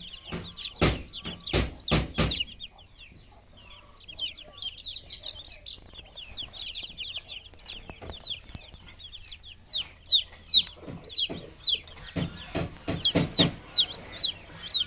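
Chicks peeping: a steady stream of short, high, falling peeps, several a second. Loud sharp knocks or taps come in a few bursts, about a second in and again around twelve to thirteen seconds in.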